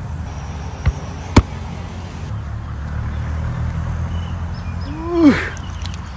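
A low steady rumble, with two sharp knocks about a second in, the second one louder, and a short voice exclamation that rises and then falls in pitch near the end.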